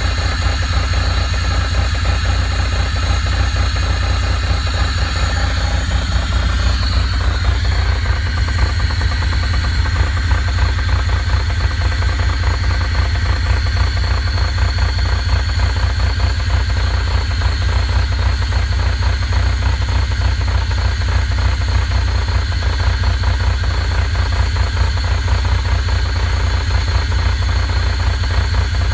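Pontiac Fiero's 2.8-litre V6 idling at operating temperature with a steady, rapid knock, a knock that only shows up once the engine is warm.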